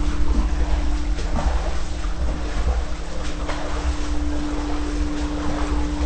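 Churning, splashing water from a swimmer stroking against the current of a small swim spa, over a steady low hum from the pump that drives the current.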